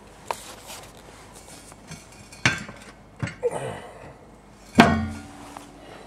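Metal knocks on a large steel pipe. There is one sharp knock about two and a half seconds in, then a couple of lighter ones, then a louder clank near the end that rings on briefly with a steady tone.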